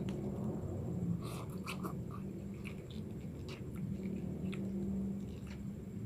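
Someone eating instant cup noodles close to the microphone: chewing and mouth sounds with a few light clicks and taps, mostly in the first half, over a steady low hum.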